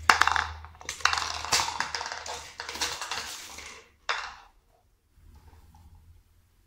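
A hard plastic container clattering and rolling across a slate tile floor, rattling for about three seconds, with one more knock about four seconds in.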